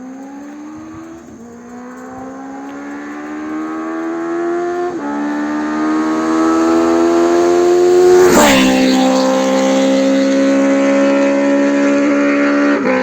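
Benelli TNT 600 inline-four motorcycle engine accelerating hard through the gears, its pitch rising in each gear and dropping at each upshift. It grows louder as the bike approaches and is loudest about eight seconds in as it passes.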